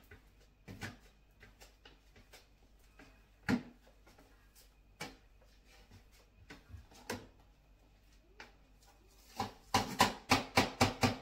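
Broom and long-handled dustpan being used on a tiled floor: scattered light knocks and scrapes, then near the end a quick run of sharp knocks as the broom is tapped against a plastic bin to shake off the dirt.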